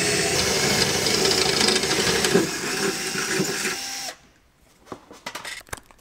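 A handheld power tool, like a cordless drill, runs steadily on the van's underbody for about four seconds, then cuts off abruptly. A few sharp clicks and taps follow.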